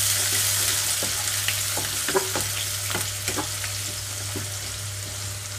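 Chopped onions and green chillies sizzling in hot oil in a non-stick wok, stirred with a wooden spatula that scrapes and taps the pan now and then. The sizzle slowly dies down, over a steady low hum.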